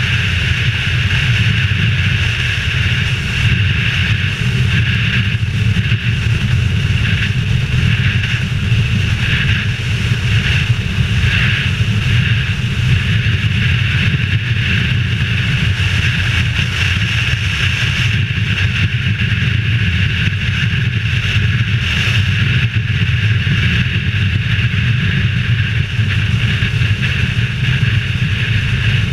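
Motorcycle being ridden at road speed, heard from a helmet-mounted camera: a steady rush of wind over the helmet mixed with engine and road noise.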